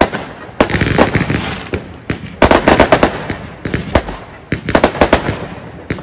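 Argento Hermes Pyroshow 2000 firework battery firing: quick runs of sharp bangs in rapid succession, with crackling between the volleys.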